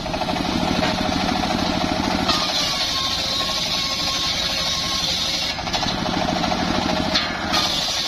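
Homemade engine-driven circular sawmill ripping an old mahogany board lengthwise. The engine runs steadily with a fast rhythmic thrum, under the blade's high cutting noise, which dips briefly twice in the last few seconds.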